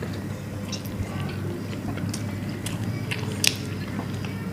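Close-up eating sounds: chewing and biting into grilled chicken wings, with scattered small wet clicks and one sharper click about three and a half seconds in, over a steady low hum.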